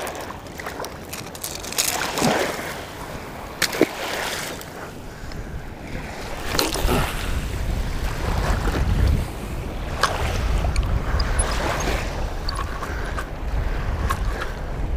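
Wind buffeting the microphone over small surf lapping at the shoreline, with a low rumble that builds about halfway through. A few sharp clicks and knocks come from handling fishing gear.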